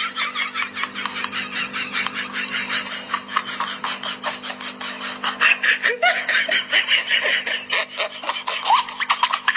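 Several people laughing in quick, continuous bursts, over a steady low hum.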